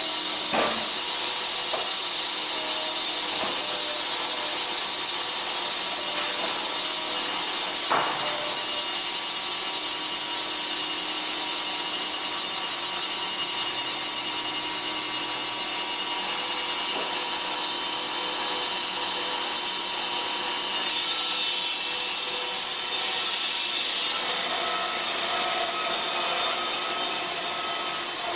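Band saw mill cutting through a log: a steady, loud, hissing sawing noise that does not let up. There is a sharp knock about half a second in and another about eight seconds in.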